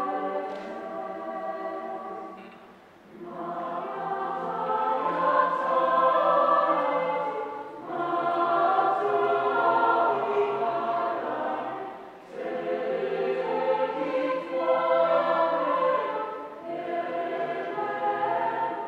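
Mixed choir of women's and men's voices singing sustained chords in phrases of about four seconds, with short breaks between the phrases.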